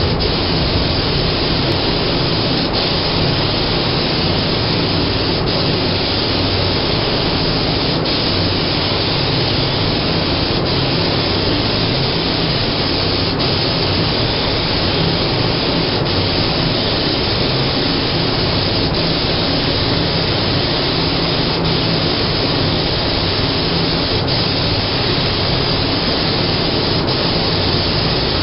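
Paint spray gun hissing steadily without a break, with a low hum under it.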